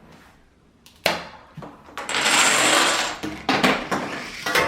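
A Rube Goldberg machine runs: a Nerf gun fires with a sharp pop about a second in, a ping pong ball rolls through a tube with a steady rumbling rattle, and then a quick run of clicks follows as dominoes topple one after another.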